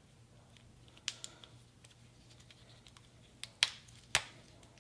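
Apple Watch being put back together: about five small, sharp clicks and snaps as the watch and its protective case and bands are handled and fitted, the two loudest in the second half.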